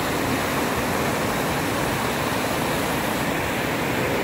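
Flooded creek's whitewater rushing over and around boulders: a steady, even rushing noise.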